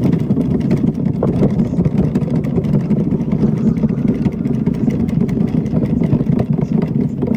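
Addi King Size circular knitting machine being hand-cranked continuously: a steady, dense mechanical clatter of the needles working around the ring.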